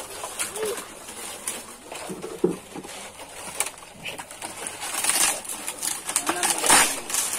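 Pigeons cooing a few times over the dry, crisp rustle of palm fronds being handled close by. The rustling grows louder and busier in the second half.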